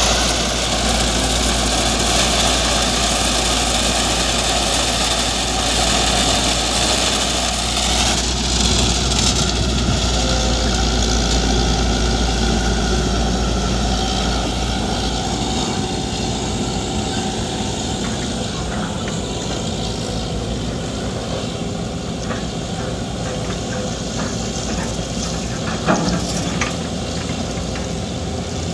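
Diesel engines of heavy construction machinery, excavators and concrete mixer trucks, running steadily. A deep rumble drops away about halfway through, and there is a sharp knock near the end.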